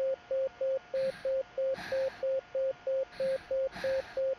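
Simulated patient monitor's pulse-oximeter beep, a short single-pitched tone repeating about three times a second and keeping time with a heart rate of 185: a very fast pulse (tachycardia) in a dehydrated child. A soft hiss comes and goes in between.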